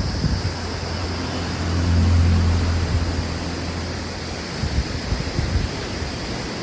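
Flooded river water rushing in a steady noisy hiss, with wind buffeting the microphone. A low rumble swells about two seconds in and fades out after about four and a half seconds.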